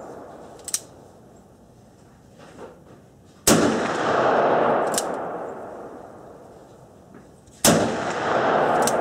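Two .357 Magnum shots from a Ruger Blackhawk single-action revolver, about four seconds apart. Each is a sharp crack followed by a long echoing boom that dies away over a few seconds. A light click of the hammer being cocked comes a few seconds before each shot.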